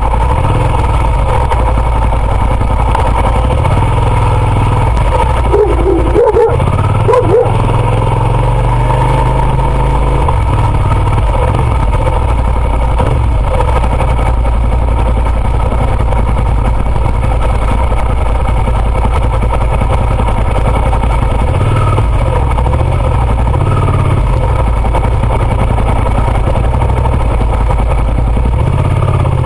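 Suzuki SV650's V-twin engine running at low speed while filtering through slow traffic, its rumble rising and falling with the throttle. About six seconds in, a dog inside a car barks a few times at close range, in two quick bursts.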